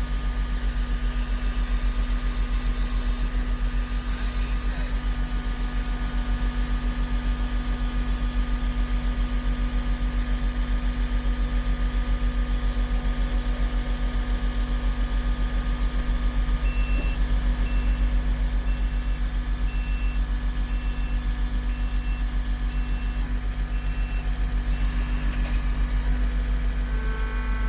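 Heavy machinery engine running steadily with a low rumble. In the second half, a backup alarm beeps about once a second for several seconds.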